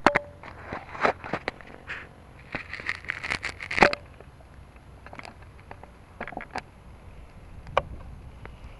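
Handling noise on a Blade 350QX quadcopter's onboard camera: irregular clicks, knocks and rustles, thickest in the first four seconds, as it is picked up and set down on gravel. A lone sharper knock comes near the end.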